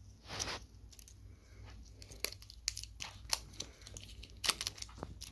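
Thin clear plastic wrap being peeled and torn off a plastic toy egg by hand: a brief rustle about half a second in, then a string of sharp crinkles and crackles, several in quick succession near the end.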